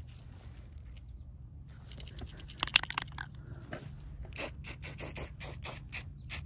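Aerosol primer can being handled: a few sharp clicks and scrapes about three seconds in, then the can shaken, its mixing ball rattling in quick, regular strokes about four to five a second.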